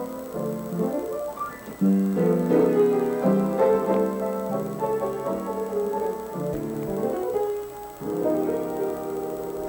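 Piano being played: a piece of held chords and melody notes moving from chord to chord, with two short lulls, just before two seconds in and about eight seconds in.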